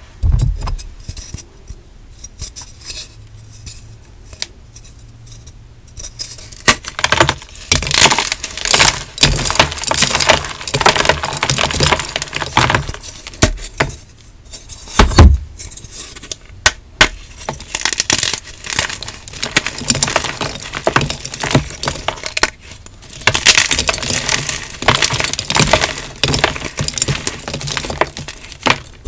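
Hard, crunchy blocks of dyed gym chalk being crushed and crumbled, giving dense sharp crackling and crunching. It comes in bursts: sparse at first, then thick and frequent from about a quarter of the way in, with brief pauses.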